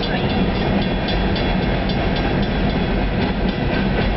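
Freight train of covered hopper cars rolling past: a steady rumble of wheels on rail, with clicks as the wheels cross rail joints.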